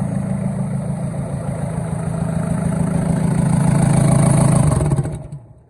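Old Komatsu bulldozer's diesel engine running loud with no exhaust or intake fitted, its fourth cylinder firing now that the stuck injector has been cleaned and freed. It grows a little louder toward the end, then stops suddenly about five seconds in.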